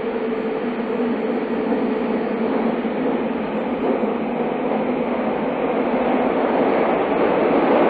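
Tobu 30000 series electric train running through a subway tunnel, heard from inside the car: a steady rumble that grows gradually louder.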